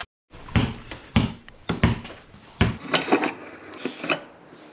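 A basketball bouncing on a concrete garage floor, about four thuds in the first three seconds, followed by a few lighter knocks.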